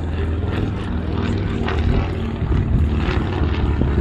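Avro Anson Mk.I's twin radial piston engines running steadily, a deep propeller drone with an even hum.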